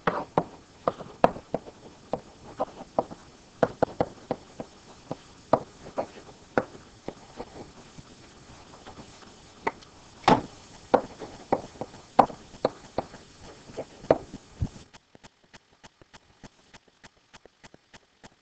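A pen tapping and scratching on a writing surface in irregular taps while handwriting. The taps fall away to faint ticks about fifteen seconds in.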